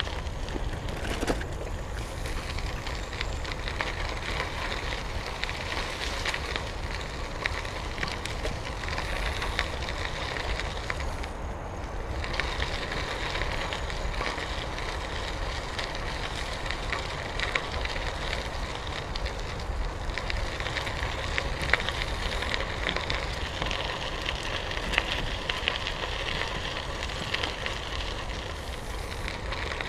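Bicycle tyres rolling over a gravel trail, a steady crunch full of small crackles from the stones, with a low wind rumble on the microphone.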